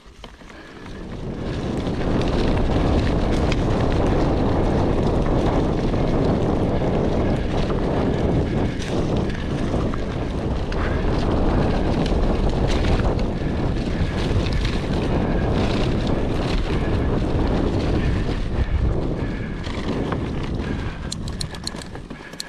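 Wind buffeting the action camera's microphone, mixed with mountain-bike tyres rumbling over the dirt trail while riding. The noise swells about a second in and eases off near the end, where a few sharp clicks come through.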